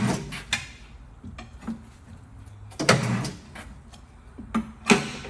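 Tire changer knocking and clanking as a wide 305 tire is forced down over the rim: a string of sharp knocks, the loudest at the start, about three seconds in and about five seconds in.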